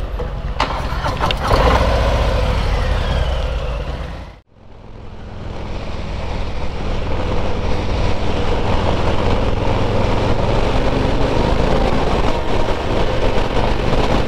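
Motorcycle engine running with road and wind noise while riding. The sound dips sharply to silence about four and a half seconds in, then the engine and wind build back to a steady level, with the engine pitch rising near the end.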